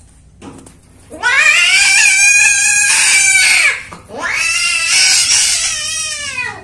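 Female cat giving her loud mating cry, the yowl a queen lets out at the end of mating. It comes as two long yowls, each rising and then falling in pitch, with a short break between them.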